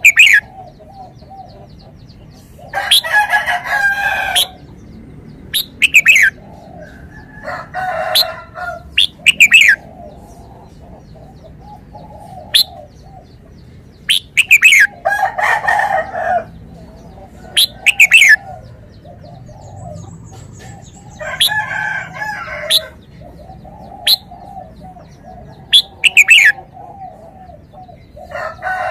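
Red-whiskered bulbul singing: short whistled phrases of sharp, falling notes every one to three seconds. Four longer, lower calls of about a second and a half come in between.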